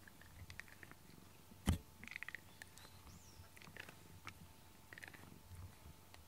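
Domestic cat purring faintly while its head and chin are stroked with a rubber grooming brush, with short scratchy brush strokes on the fur. One sharp click comes about a second and a half in.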